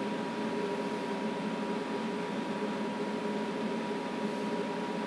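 Steady background hum and hiss with a constant high tone running through it, unchanging throughout; no sound from the dog.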